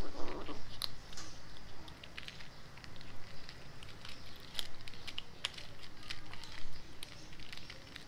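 Cats crunching dry kibble from a plastic tray: irregular sharp crunches and clicks, with a brief louder sound right at the start.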